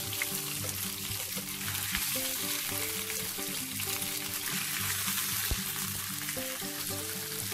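Grass carp fish heads sizzling steadily in hot oil in a frying pan, over soft background music with a stepping melody.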